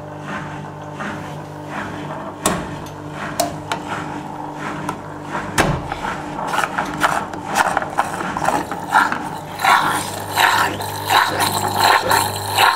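Washing machine drain pump, the original 1992 Askoll magnetic pump of a Zanussi Super Jetsystem, running with a steady low hum that is slightly noisy, which the owner puts down to its age. A few sharp clicks come from the plastic filter access flap being opened in the first half. An uneven, choppy noise grows louder over the last few seconds.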